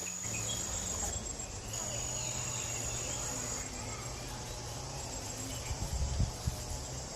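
Insects trilling with one steady high-pitched tone, like crickets. The tone breaks off briefly about a second in and grows fainter after the middle, over a faint low hum.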